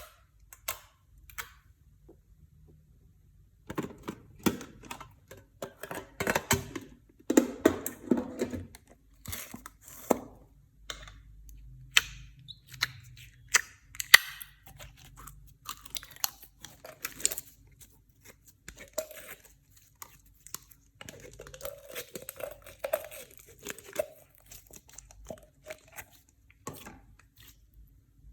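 Clear slime being squished and mixed by hand, with crunchy bits in it: sticky crackles, pops and crunches in irregular runs. It starts as a few sparse clicks, then thickens into dense crackling about four seconds in, with another busy stretch past the twenty-second mark.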